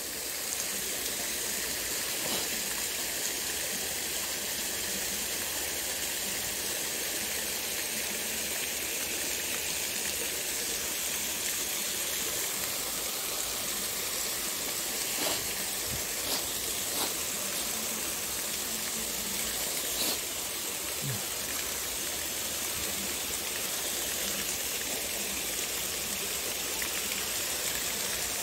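Small stream running steadily, water spilling over rocks into a pool. A few faint clicks come about halfway through.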